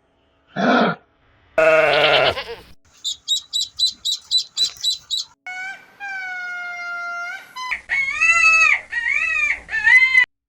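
A run of different animal calls one after another. First a short wavering bleat, then a quick series of high chirps. After that comes one long steady whistled call, and near the end several rising-and-falling calls.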